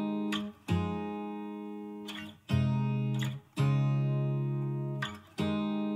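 Background music of acoustic guitar chords, each strummed and left to ring out and fade before the next, about one chord every one to two seconds.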